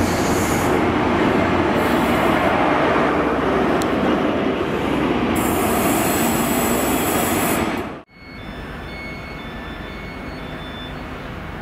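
A High Speed Train's Mark 3 coaches and Class 43 diesel power car running past close by: a loud, steady rumble of wheels on rail, with a high squeal coming and going. About eight seconds in the sound breaks off sharply. It is followed by the quieter, distant running of a Class 66 diesel locomotive hauling a freight train, with faint thin squeals.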